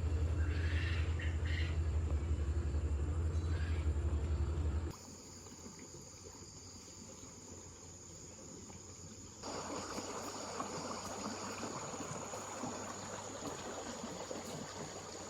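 Rice-field ambience: a steady high insect drone and scattered bird chirps. For about the first five seconds a loud low hum sits under them, then it cuts off abruptly.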